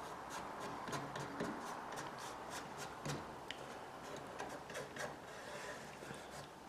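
Fingertips rubbing and pressing a cloth down onto a dry washer's riffle tray, working it into the silicone beneath: soft rubbing with many small, irregular ticks and scrapes.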